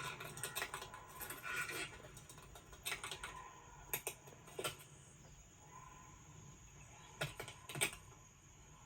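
Quick, light clicks and taps in short clusters, like typing: a flurry at the start, a few around three to four and a half seconds in, and two sharper ones near the end, over a faint steady background.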